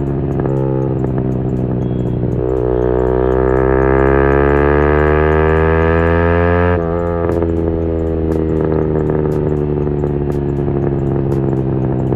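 Motorcycle engine idling, then revved up smoothly for about four seconds and dropped back to idle when the throttle is shut, about seven seconds in.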